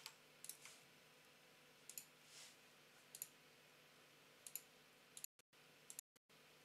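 Faint computer mouse clicks, about one every second or so and several in quick pairs, over near-silent room tone. Near the end the sound cuts out to total silence a few times for a split second.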